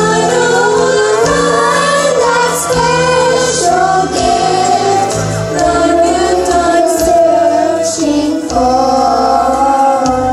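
Children singing a song together into microphones over a musical accompaniment with steady low bass notes.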